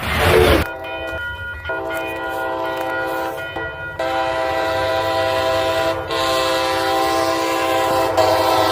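Locomotive air horn sounding one long multi-note chord, briefly dipping about four and six seconds in, over the low rumble of a moving train.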